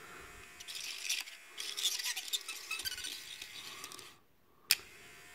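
Scratchy scraping and light clicking as a small screwdriver works the stylus arm and switch of a toy voice-box mechanism, over a faint steady whir from its small motor. The sound drops out briefly about four seconds in, then a single sharp click.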